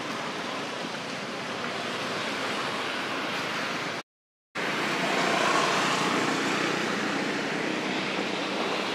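Steady outdoor background hiss with no distinct events, cut by a half-second dropout to silence about four seconds in and a little louder after it.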